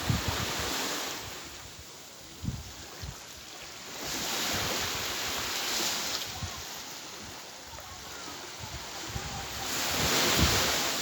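Waves washing in, the hiss swelling and fading about every four to five seconds, with wind buffeting the microphone.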